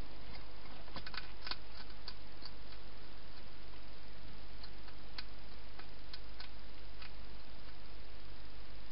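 Wild hedgehog eating from a bowl in a plastic feeding box: scattered small clicks and crunches, a quick cluster about a second in and single ones after, over a steady hiss.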